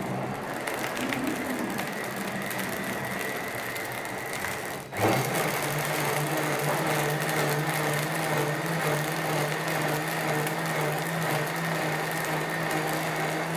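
OmniBlend high-power blender running, liquefying grapes into juice. About five seconds in it dips for an instant and then runs louder with a steady motor hum.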